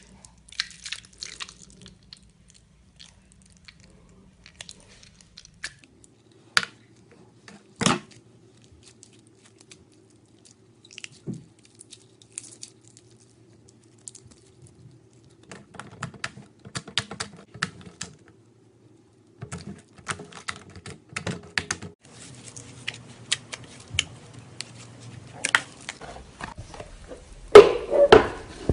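Slime being squeezed and poked by hand: scattered small clicks and crackles, sparse at first and then coming in dense clusters, with a louder burst near the end.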